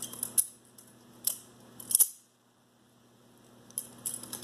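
Balisong trainer being flipped: its handles clack against each other and the pivots click in several sharp strokes, with a short pause about halfway through before more clacks near the end.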